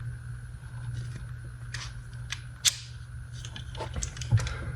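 Steel adjustable-joint channel pliers being worked open and shut and slid through the joint's positions, giving a scatter of small metal clicks, the loudest about two-thirds of the way in.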